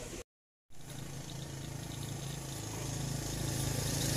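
After a brief dropout, a vehicle engine hums steadily, growing louder as it draws nearer.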